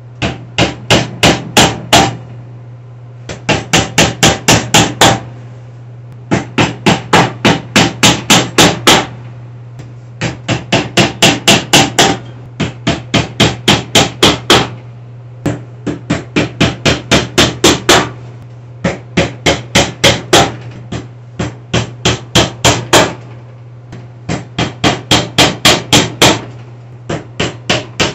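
Hammer driving small ribbed nails through a bookcase's thin folding back panel: quick runs of light taps, about five a second, one run per nail, with short pauses between nails.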